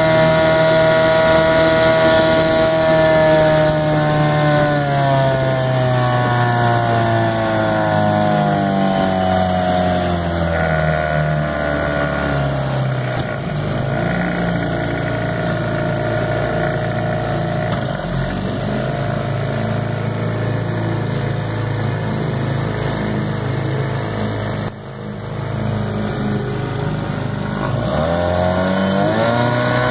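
Vintage Mercury Kiekhaefer KE4 7.5 hp two-stroke outboard motor running at speed, then throttled back, its pitch falling over several seconds to a slow, lumpy low-speed run. Near the end it is opened up again, pitch rising.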